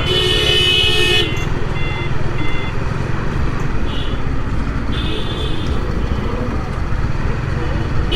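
Vehicle horns honking in road traffic: a held honk in the first second, short toots around two and four seconds in, and another honk about five seconds in, over the steady low rumble of a moving motorcycle and wind.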